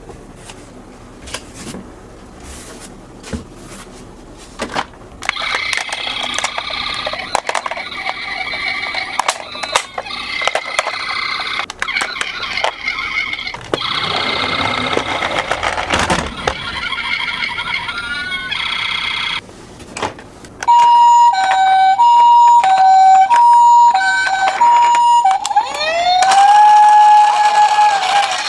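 Plastic toy cars clicking and rattling as they roll, then, about two-thirds of the way in, a toy ambulance's electronic hi-lo siren sounds loudly, alternating steadily between two tones, with a rising wail joining it near the end.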